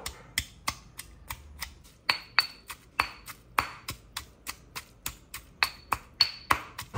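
Stone pestle pounding chopped lemongrass, chilli, turmeric and shallots into a spice paste in a granite mortar: a steady rhythm of about three strikes a second, some with a short ringing clink.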